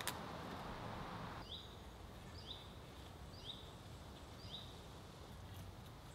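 A small songbird calling four times, evenly about a second apart, each a short high note that sweeps down. A single sharp knock at the very start, over faint woodland background.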